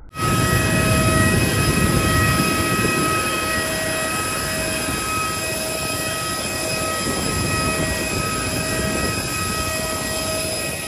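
Jet airliner's turbine whine: a steady high whine in several pitched tones over a low rumble, starting abruptly and holding level.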